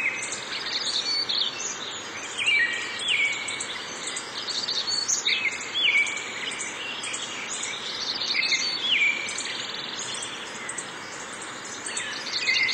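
Recorded forest ambience, an iOS background sound: several birds chirping and giving short falling whistles, over a steady background hiss.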